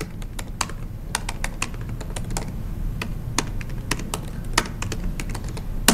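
Typing on a computer keyboard: irregular keystroke clicks with short pauses between runs, over a low steady hum.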